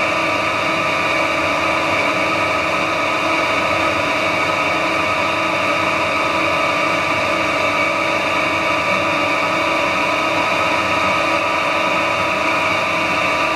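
Metal lathe running steadily under power cross feed, with a whine of several held tones from its motor and gearing. The tool is cutting a black Delrin (acetal) rod dry, without coolant.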